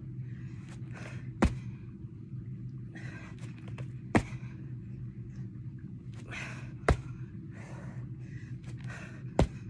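A woman breathing hard from exertion, with short, heavy exhalations as she repeats a press-up and kick exercise. Four sharp taps come about every two and a half seconds, one with each repetition, over a low steady hum.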